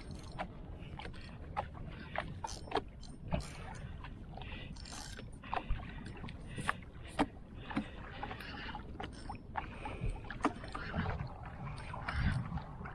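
Water lapping against a small wooden canoe's hull, with irregular sharp clicks and knocks scattered throughout.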